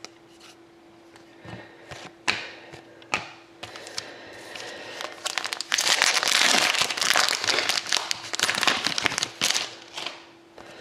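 A few light clicks of cards being handled, then loud crinkling of a hockey-card pack wrapper for about four seconds, starting around six seconds in.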